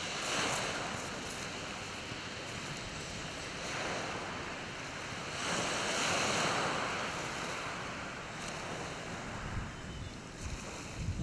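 Small waves breaking and washing up a shingle beach, the surf swelling and easing three times.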